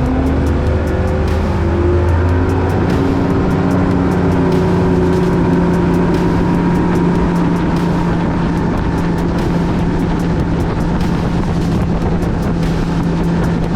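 Bass boat's outboard motor running steadily at speed, its pitch settling just after climbing as the boat speeds up, over a constant rush of wind and water.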